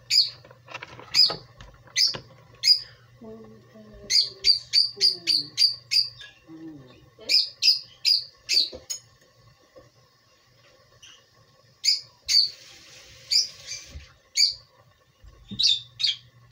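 A small bird chirping: short high chirps in quick runs of several at a time, with short pauses between runs, over a faint low steady hum.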